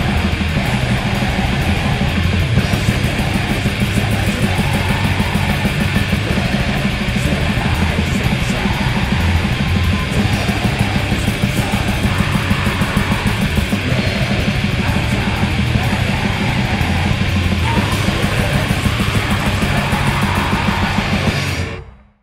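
Death/black metal recording with dense distorted guitars and pounding drums. It breaks off near the end as the track finishes.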